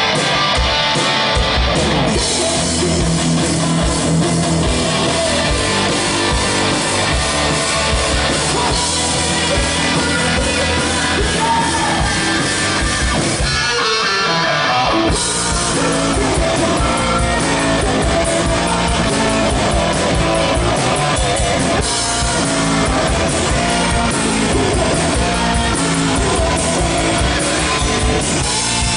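Live rock band playing loud: electric guitars, bass and drum kit, with a singer. The bass and drums drop out briefly about halfway through, then come back in.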